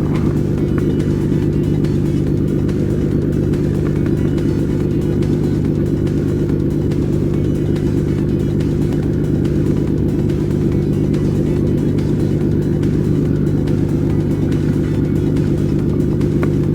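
A motor engine running at a constant speed, a steady low drone that neither rises nor falls.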